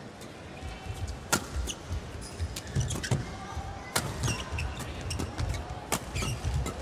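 Badminton rackets striking the shuttlecock in a fast doubles rally, four sharp cracks one to two seconds apart, with court shoes squeaking and footsteps thudding on the court between hits.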